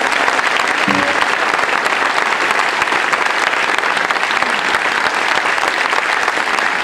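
A large audience applauding, steady and dense.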